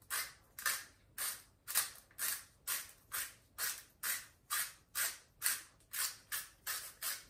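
Wooden salt mill grinding coarse sea salt, a dry rasp with each twist, about two a second.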